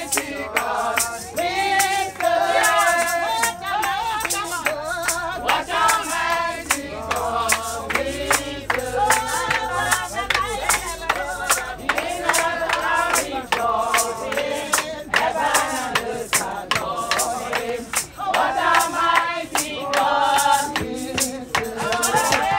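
A congregation singing a praise song together, with steady rhythmic hand-clapping.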